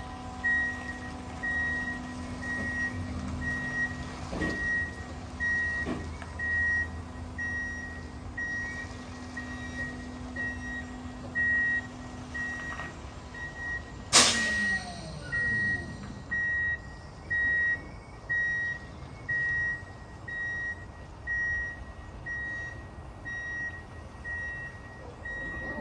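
Electric semi truck's backup alarm beeping steadily, a little under once a second, as the rig reverses toward a loading dock. A low steady hum fades out around halfway, and a single sudden, sharp burst follows just after.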